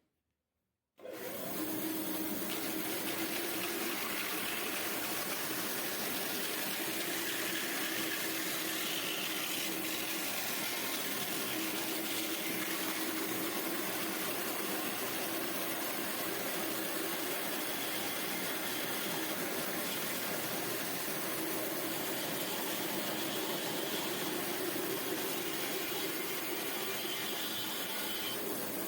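Homemade wooden band saw starting up about a second in and running with a steady rushing noise and a faint hum that comes and goes.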